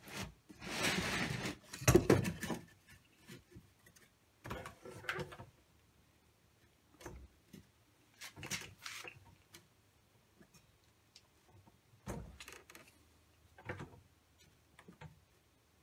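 Handling noises at a workbench: a rustle near the start, then scattered light knocks and taps as a thin wooden strip is set against a miter saw's fence. The saw is not running.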